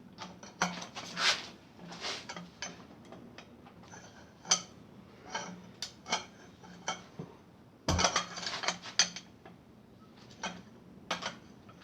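Hand tools clinking and clanking against metal engine parts on a 428 Cobra Jet V8's top end as bolts are worked loose: irregular sharp metallic clicks and knocks, with a louder burst of clatter about eight seconds in.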